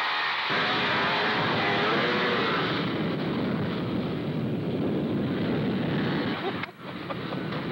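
Polaris snowmobile engine running at speed as it passes close by, its whine bending in pitch over the first couple of seconds, then turning into a rougher, noisier rush as the sled climbs away up the slope. The sound briefly drops out near the end.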